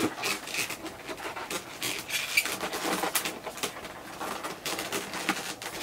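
Latex twisting balloons squeaking and rubbing against each other under the fingers as they are wrapped and pulled through, in short irregular squeaks and scrapes with one sharper squeak about halfway.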